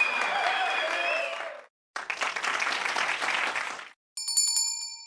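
Outro sound effects: two bursts of applause, the first with a wavering whistle-like tone over it. Near the end a single bright bell ding rings out and fades.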